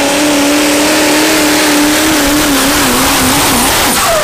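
Pulling tractor's engine running flat out at high revs under load, a loud steady drone that wavers up and down in pitch over the last second or so.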